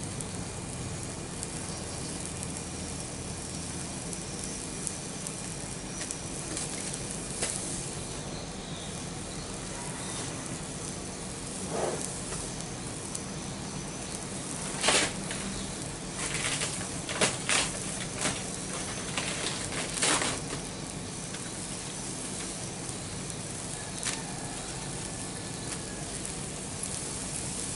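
Open cooking fire burning under a wok of heating water: a steady hiss with a handful of sharp pops and crackles, most of them in the middle.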